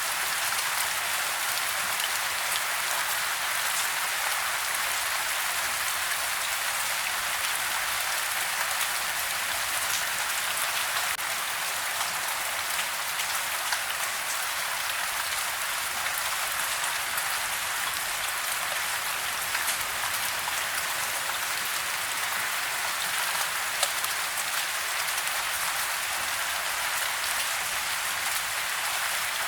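Steady rain falling on a house, heard from indoors: an even hiss of rain with many small drop ticks, and one louder drop about 24 seconds in.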